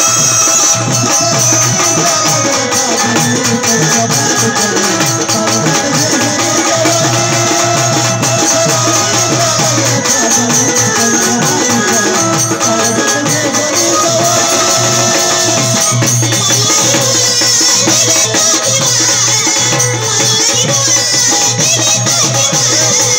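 Waghya-Murali folk music: a wandering melodic line over drum and rattling, jingling percussion in a steady rhythm.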